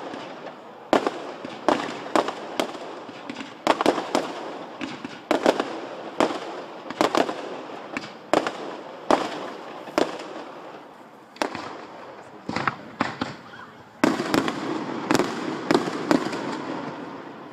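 Aerial fireworks display going off: an irregular series of sharp bangs from shells and comets, about one or two a second, each dying away quickly. There is a denser, louder volley a couple of seconds before the end.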